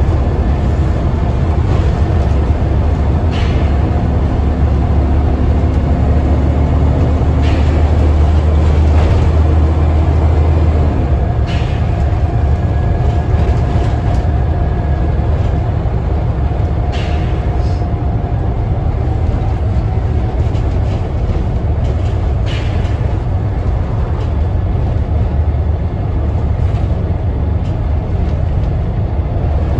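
Scania N94UD OmniDekka double-decker bus under way, heard from the upper deck: a steady low drone from its diesel engine and the road, with a faint whine. Short knocks and rattles from the bodywork come every few seconds.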